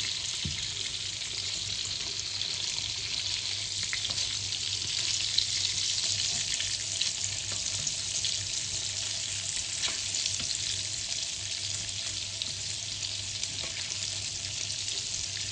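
Chicken breasts sizzling steadily in hot butter and oil in a frying pan, with scattered light crackles and a metal spoon scooping the fat to baste them.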